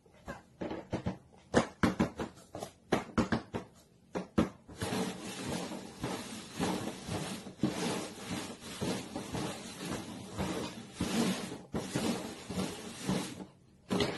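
Paper cups being tapped down and shuffled about on a cardboard box: a run of separate light knocks for the first few seconds, then continuous scraping and clatter as the cups are slid around.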